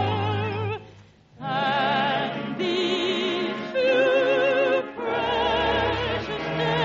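Operatic-style singing with a wide vibrato on held notes over an orchestra. The music breaks off briefly about a second in, then the voice comes back on new notes.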